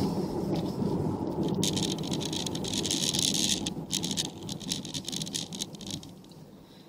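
Road and engine noise of a car driving, heard from inside the cabin, with a hissy crackle for a couple of seconds in the middle. The rumble fades about six seconds in as the car slows to a stop in a queue.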